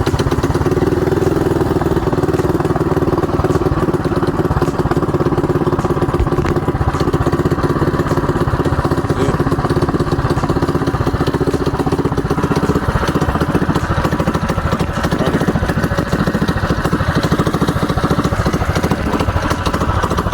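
Baja Warrior mini bike's 212cc single-cylinder four-stroke engine running steadily with a regular firing beat, just started with a little choke after its clogged carburetor jet was cleaned.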